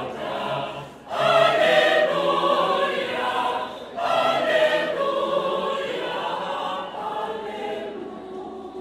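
Large church choir singing, with short breaks between phrases about a second in and again near four seconds, each followed by a louder entry, then easing off toward the end.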